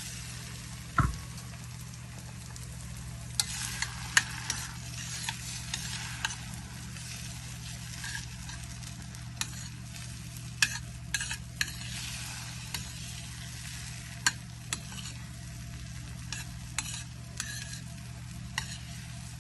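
Egg scrambling in oil in a hot frying pan: a steady sizzle, with a utensil repeatedly clicking and scraping against the pan and one louder knock about a second in. A low steady hum runs underneath.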